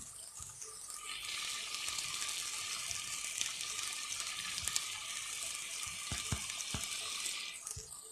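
Soaked chana dal sizzling as it fries in oil and masala in a clay handi, a steady hiss that starts about a second in and stops near the end, with a few soft knocks.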